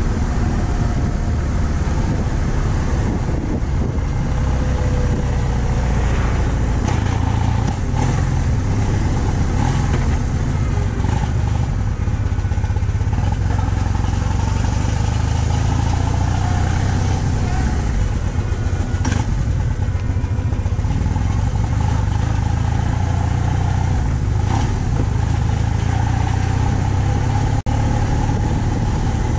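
A BMW R 1200 C's boxer twin engine running steadily as the motorcycle cruises, mixed with a constant low rush of riding noise.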